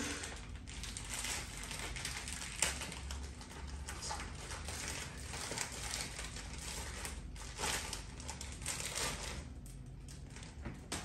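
A plastic courier pouch being torn open and crinkled by hand: steady crackling rustle with a few sharper rips, dying down near the end.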